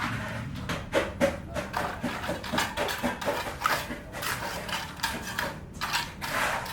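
Irregular knocks, clacks and scraping of building work, several sharp hits a second, over a low rumble.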